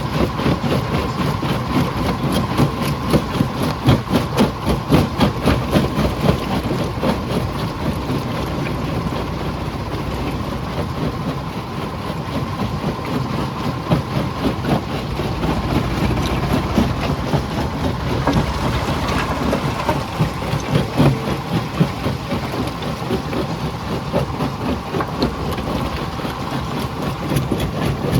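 Jaw crusher running under load: a steady machine hum with a dense, irregular clatter of rock knocking and cracking in the jaws.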